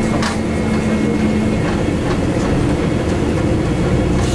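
Bus interior while driving: a steady low rumble of engine and road noise with a faint constant high whine and a few light rattles. A lower hum drops out about a second and a half in.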